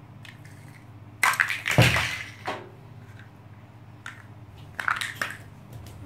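Large plastic building blocks clattering and knocking on a tile floor. A burst of knocks comes about a second in, loudest near two seconds, and a few lighter clicks follow near the end.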